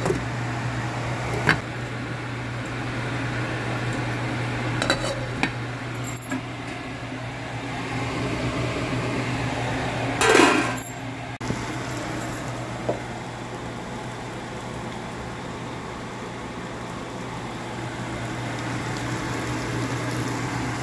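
Pot lid clinking against a cooking pot as it is handled and set in place, with a louder clatter of the lid about ten seconds in. A steady low hum runs underneath throughout.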